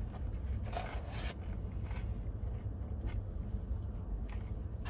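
Brief rustle of paper fast-food packaging being handled about a second in, followed by a few fainter rustles, over a steady low rumble.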